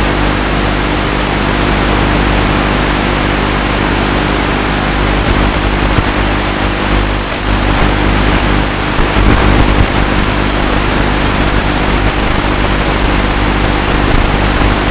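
FPV quadcopter's motors and propellers running in flight: a steady buzzing hum with a dense hiss over it.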